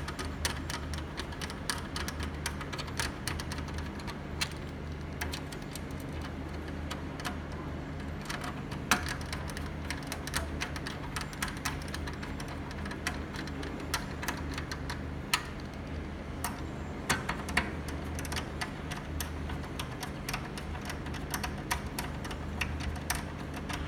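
Irregular small clicks and ticks of hand work on an HDMI matrix switcher's metal chassis as a new control board is fastened in, over a steady low hum.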